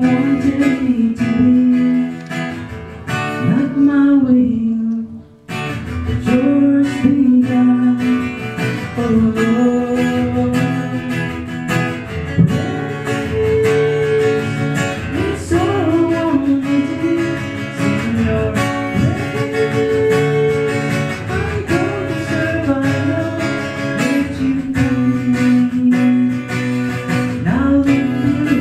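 A worship song played on strummed acoustic guitar, with a singing voice carrying the melody without clear words. The music thins out briefly about four seconds in, then comes back in at full level.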